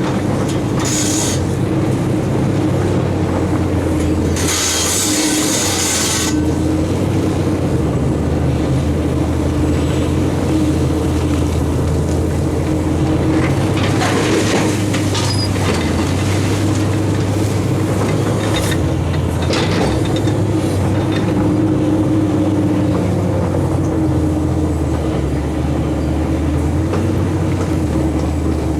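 Heavy diesel engines of a Fiat-Hitachi FH450 excavator and a Perlini dump truck running steadily under load while gravel is dug and loaded, with a few short rushing bursts of noise, the longest about five seconds in.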